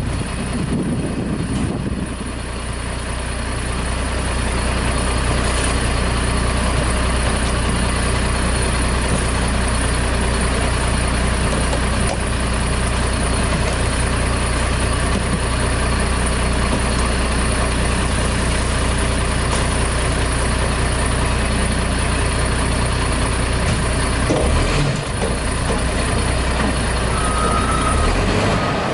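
Diesel engine of a WhiteGMC front-loader garbage truck idling steadily, with a few knocks as trash is dumped into the container on its forks, and a short squeal near the end.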